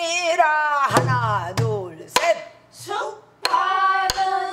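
A woman singing a pansori-style danga in long, bending, wavering notes, keeping time on a buk barrel drum struck with a stick: about five strokes, some with a low boom. The singing breaks off briefly near the middle.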